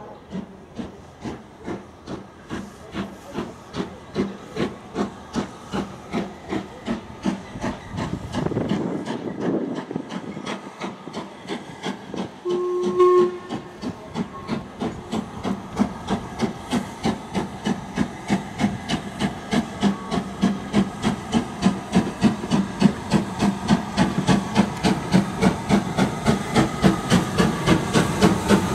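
Steam locomotive working a train, its exhaust beating in a steady rhythm that quickens and grows louder as it approaches. A short whistle blast sounds about halfway through.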